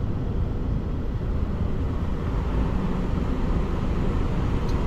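Semi truck's diesel engine running and tyre noise while driving, heard inside the cab as a steady low noise.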